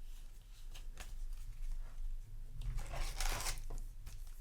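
Yu-Gi-Oh! trading cards and foil booster packs being handled by hand: light clicks and rustles, with a longer rustle about three seconds in.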